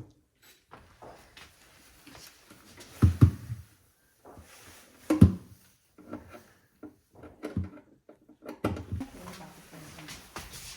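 Handling noises from a refrigerator being opened up for inspection: a few dull thumps and knocks with light rattling and clicks as its drawers and plastic parts are moved.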